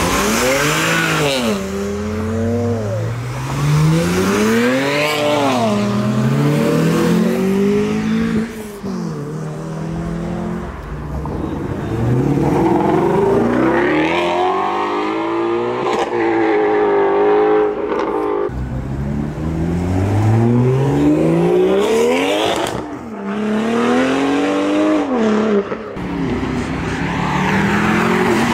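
A string of performance cars accelerating hard away, one after another. Each engine note climbs in pitch, drops sharply at an upshift, and climbs again as it pulls through the gears.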